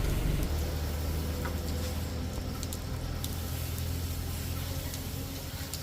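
Motorcycle engine running steadily, its note shifting up about half a second in, with a few faint clicks over it.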